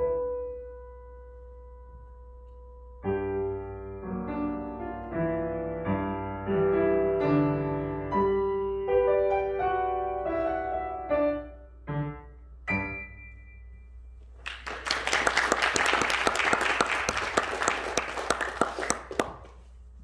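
Upright piano played solo: one held note, then a run of chords that closes the piece about thirteen seconds in. About a second and a half later an audience applauds for around five seconds.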